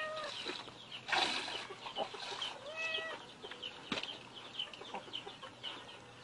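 A white kitten mewing twice, once at the start and again about three seconds in, with a short rushing hiss about a second in. Chickens cluck and peep throughout.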